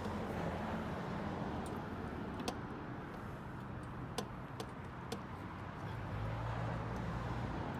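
A few light clicks and taps of hands and tools working a clamped fuel hose off a lawn mower carburetor, over a steady low hum that grows a little stronger near the end.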